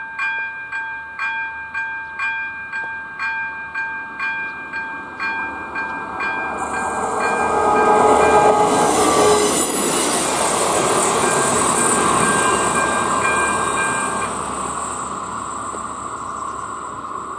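Level-crossing warning bell (AŽD 97 signal with ZV-02 electronic bell) ringing about twice a second. A passenger train then passes over the crossing, loudest around 8 to 10 seconds in, and fades away. The bell stops once the train has cleared.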